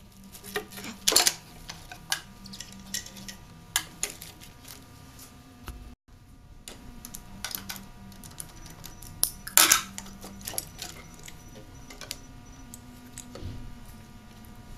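Irregular clicks, knocks and metallic clinks of hand tools and metal engine parts as the thermostat housing is unbolted and its hoses are worked off a marine V8. The loudest knocks come about a second in and again about ten seconds in.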